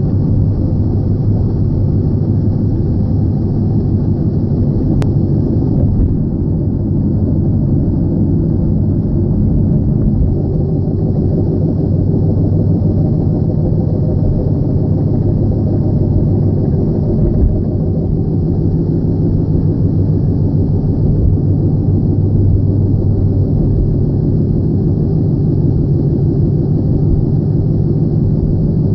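Vehicle tire or brake noise while driving: a steady low rumble with a drone in it that does not let up. It is the noise the owner is trying to pin down as coming from the tires or the brakes.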